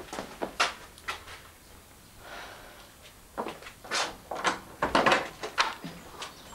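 A wooden front door being unlocked and opened: a run of sharp clicks and knocks as the latch and lock are worked, loudest about five seconds in.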